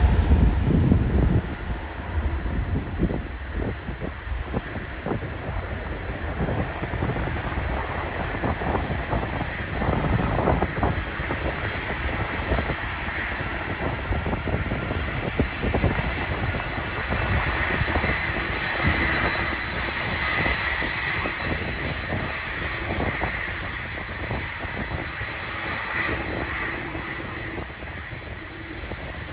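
Airliner jet engines running, a steady rush with a faint high whine that swells around the middle. Wind buffets the microphone loudly in the first second or so.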